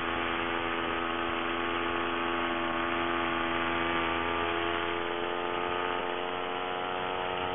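Paramotor trike's engine and propeller running steadily in level flight, a constant hum with many overtones.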